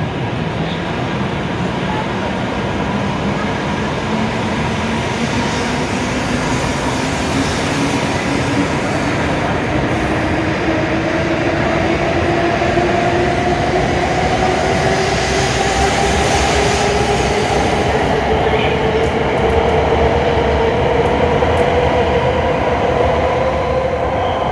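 E7-series Shinkansen train pulling out and accelerating, with its running noise and the whine of its traction motors rising steadily in pitch as it picks up speed.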